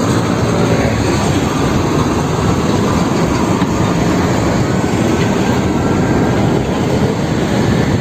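Steady, loud engine and road noise from heavy fuel tanker trucks running past on a road.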